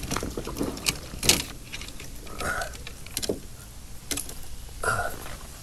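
Scattered sharp clicks and light knocks at uneven intervals, with a couple of short breathy sounds in between.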